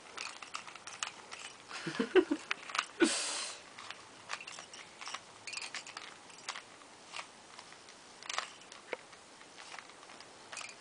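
Plastic Rubik's cube being turned quickly by hand, its layers clicking and clacking in an irregular run of small clicks, with a short hiss about three seconds in.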